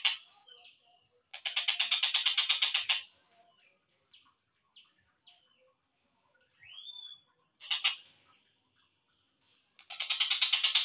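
Tengkek buto kingfisher calling, slowed down: a long, fast rattling chatter about a second and a half in and again near the end. In between come scattered short chirps, a single rising-and-falling whistled note and a brief rattle.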